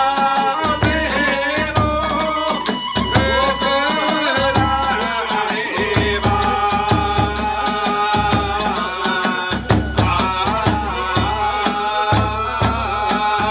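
Kagura hayashi music: a transverse bamboo flute playing a wavering melody over steady beats of a large drum and rapid, continuous clashing of small hand cymbals.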